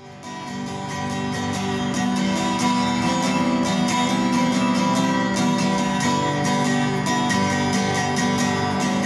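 Acoustic guitar music, fading in over the first couple of seconds and then playing steadily.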